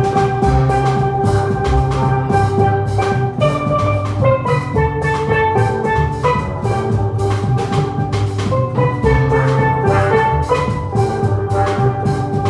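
A live band playing an upbeat instrumental hymn tune: held melody notes over a steady drumbeat, with no singing.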